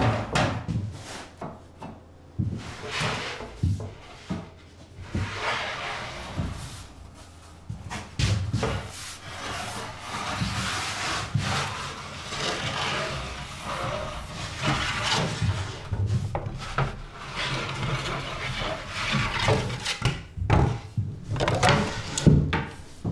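A long wooden bread peel sliding and scraping on the hearth of a wood-fired oven, with repeated wooden knocks and clatters, while dough is loaded into the oven.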